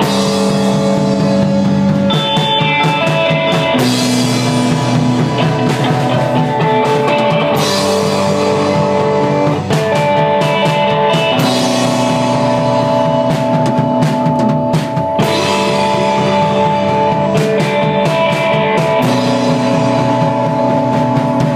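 Rock band playing live, loud and steady: electric guitars and bass holding chords that change every couple of seconds over busy drums and cymbals, with no singing heard.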